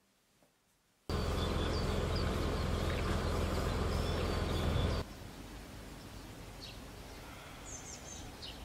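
Outdoor field ambience with small birds chirping. A loud steady rumbling noise cuts in about a second in and drops suddenly to a quieter background about five seconds in, where the high bird chirps stand out more.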